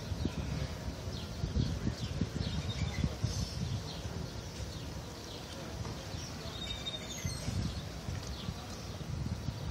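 Small birds chirping repeatedly in short, quick notes over a low, gusting rumble of wind on the microphone.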